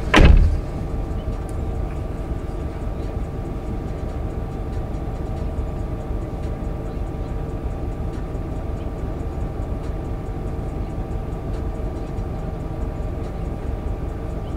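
A car door shuts with a heavy thud just after the start; then the parked car idles steadily, heard from inside the cabin as a low, even hum.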